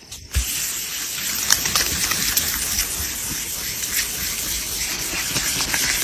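Water spraying in a steady rush, wetting down the plastic fender during wet sanding. It starts suddenly about a third of a second in.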